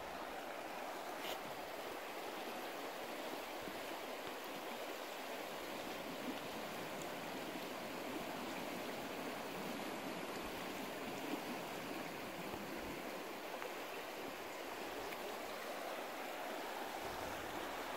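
Creek water running steadily over rocks, an even rushing that does not change.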